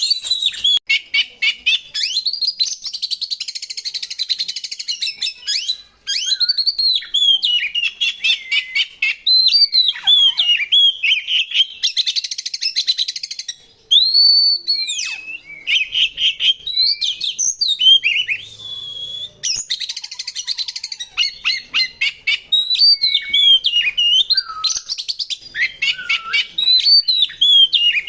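Oriental magpie-robin (kacer) singing a long, varied song: clear whistled notes that slur up and down, broken by harsh, rapid rattling passages near the start, about halfway through and again about two-thirds through.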